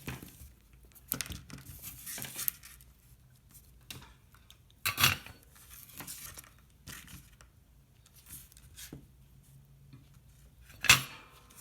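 Scattered handling noises of wires and tools on a workbench: small clicks and rustles, with a sharp knock about five seconds in and a louder one near the end.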